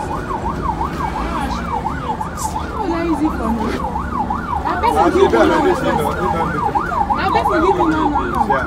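Electronic siren wailing rapidly up and down, about three swings a second, holding a steady level throughout, with voices underneath.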